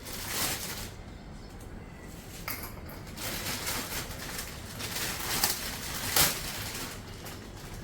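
Kitchen handling sounds: utensils and dishes being moved and set down, with two sharp clicks a little over halfway through.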